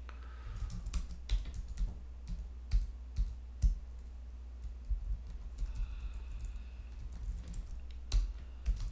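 Typing on a computer keyboard: irregular key clicks as a terminal command is entered, with a few harder keystrokes standing out, over a steady low hum.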